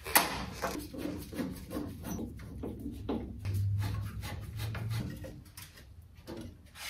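A hand tool working on the bolts of a car's grille and front bumper: a series of irregular light clicks and scrapes of metal on metal, with a sharp click just at the start.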